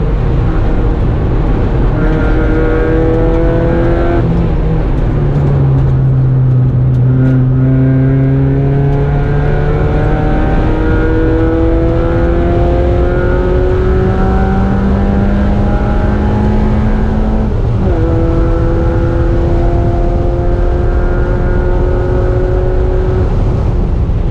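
Mazda Miata race car's four-cylinder engine heard from inside the stripped cabin, its pitch climbing steadily under full throttle. The pitch falls away about four seconds in and stays low for a few seconds, then climbs again in a long pull. About two-thirds of the way through it drops suddenly at an upshift and climbs once more.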